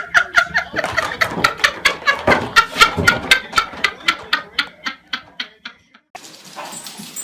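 A pet eating noisily: quick, regular chewing or lapping sounds, about five a second, that stop about six seconds in.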